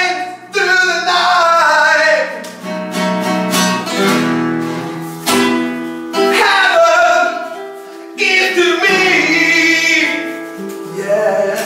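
A voice singing long, held phrases over plucked-string accompaniment, most like guitar.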